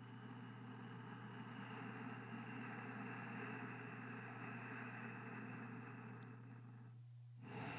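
Faint steady background noise with a constant low hum underneath, the noise fading out near the end.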